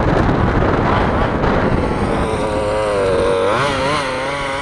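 A 1/5-scale RC car's 34cc two-stroke gas engine running as the car drives. The note is rough at first, then settles into a steady buzz, its pitch wavering up and down briefly a little after halfway.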